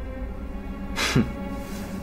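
Tense, dark drama score with low sustained tones, and one brief sound dropping in pitch about a second in.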